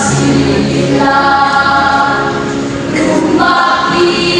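School choir singing in long held chords, moving to a new chord about a second in and again after about three seconds.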